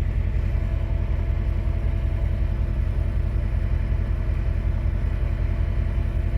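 Diesel pickup truck engine idling steadily: a low, even rumble with a faint steady hum above it.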